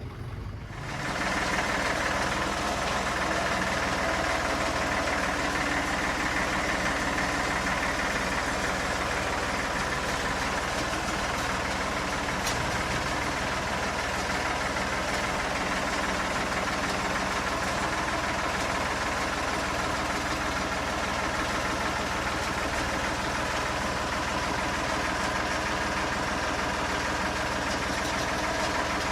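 A vehicle engine idling steadily, coming up about a second in.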